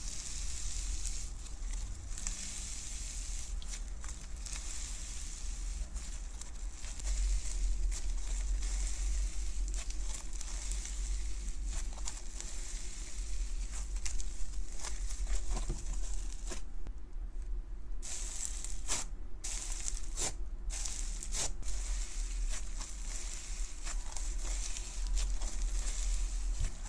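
Fluffy slime squeezed, pulled apart and stretched by hand, a continuous high hiss of tiny crackles and pops as it tears and folds. The crackling briefly stops about two-thirds of the way through, then resumes. A low steady hum runs underneath.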